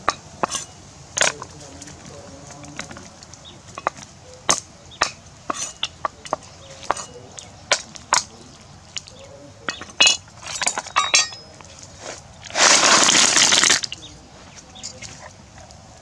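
A cleaver chopping freshwater snails on a wooden chopping board: irregular sharp chops and shell cracks, a few at a time. A louder rattling clatter lasts about a second near the end.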